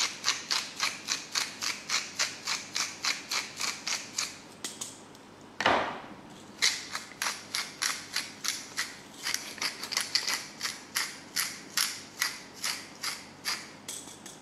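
Hand-twisted salt and pepper mills grinding seasoning over a glass bowl of chickpeas: quick steady clicks, about four or five a second. The clicking stops about four and a half seconds in, there is one louder sound about a second later, and the clicking starts again.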